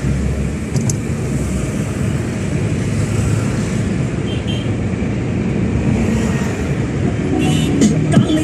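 Steady road and engine noise heard from inside the cabin of a moving car on a highway: a constant low rumble with a lighter hiss above it.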